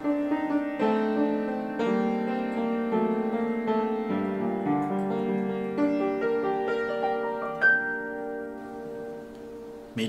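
Slow piano music: held chords that change about once a second, with a single bright high note near the end, fading out over the last couple of seconds.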